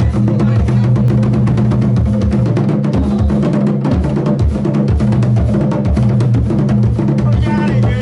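Loud music with a steady drum-kit beat over a stepping bass line.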